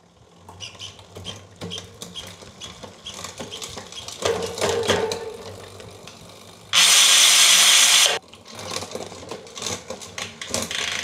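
SRAM GX Eagle Transmission drivetrain turned by hand on a bike stand: the chain runs over the cassette with a quick string of clicks as the electronic rear derailleur shifts through the gears with multi-shift enabled. About seven seconds in, a loud rush of noise lasts just over a second and cuts off suddenly.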